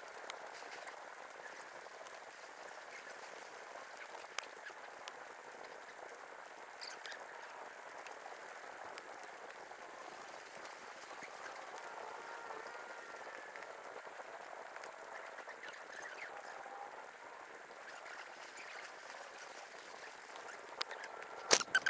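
Steady outdoor forest ambience, a continuous hiss with faint wavering animal calls through the middle. A few sharp clicks come near the end.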